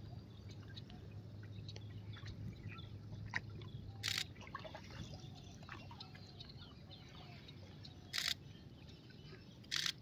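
Faint chirps and calls of many distant birds over open water. Three brief bursts of hiss come about four seconds in, about eight seconds in and near the end.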